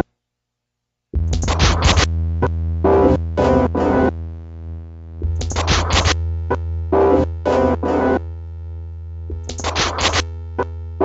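Electronic music with synthesizers. After about a second of silence, a held low bass drone comes in under quick clusters of short, stuttering, chopped synth stabs that repeat every few seconds.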